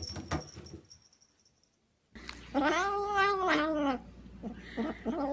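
Toilet paper rustling as a cat pulls it off a roll, then, after a pause, a kitten's long wavering yowl lasting about a second and a half, with a second yowl starting near the end. The kitten is growling and yowling over a treat clutched in its mouth and paws, the sound of a kitten guarding its food.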